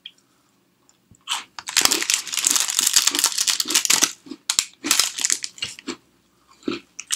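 Plastic biscuit wrappers crinkling and crackling, a long stretch of handling followed by a few shorter crinkles.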